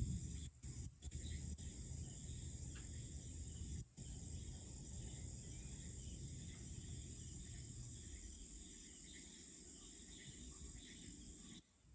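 Steady night chorus of crickets and other insects, over a low rumble that fades away about eight seconds in. The sound drops out briefly a few times.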